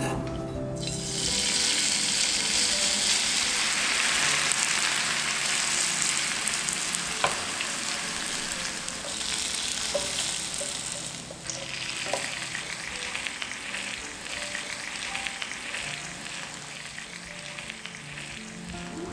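Oil sizzling steadily under shredded potato pancakes frying in a nonstick pan, starting about a second in. The sizzle is loudest in the first half and eases off later, with a few light taps.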